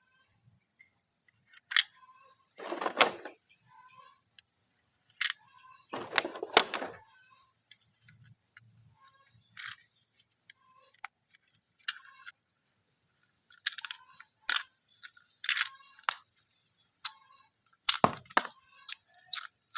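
Plastic toys and packaging being handled: scattered sharp clicks and clacks, with two rustling bursts of about a second, about three and six seconds in. A faint steady high-pitched whine runs underneath.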